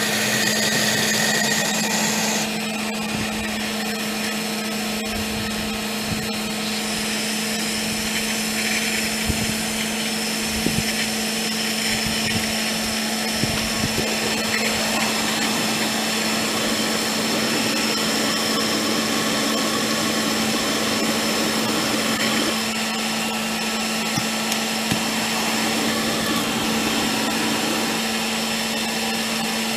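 Electric blower on a small wood gasifier running with a steady motor hum, drawing air through the unit, with a few faint clicks along the way. A brighter hiss over it in the first couple of seconds drops away.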